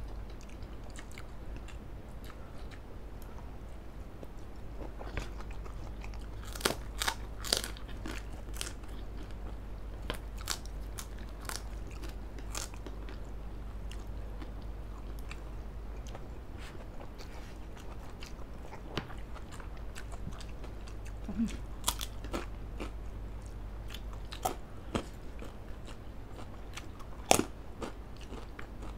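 Close-miked eating of spicy fried instant noodles and grilled chicken: chewing and biting with scattered sharp crunches and clicks. The loudest is a single crack near the end.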